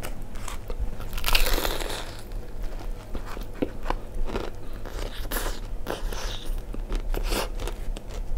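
A person biting into crispy fried chicken, with a loud crunch of the breading about a second in, then crunchy chewing.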